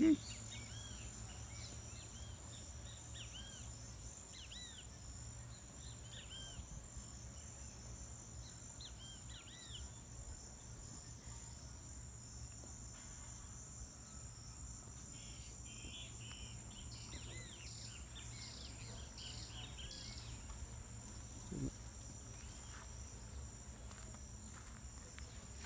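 Steady high-pitched insect trilling, typical of crickets in marsh vegetation, with scattered short bird chirps through the first half and again later, over a low rumble. A brief soft thud late on.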